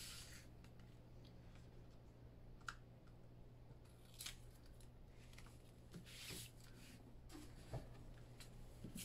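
Mostly quiet, with a few faint, brief rustles and swishes of cardstock being moved and pressed down on a cutting mat, over a steady low hum.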